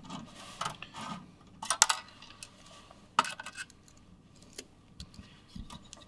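Screwdriver loosening a screw on a steel PC case, with scattered small metallic clicks and clinks; the sharpest come about two seconds in and again about a second later.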